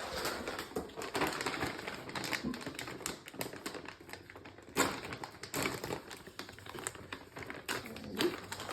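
Cheese packaging being opened and handled: a run of irregular crinkling and crackling, with a sharper crackle about five seconds in.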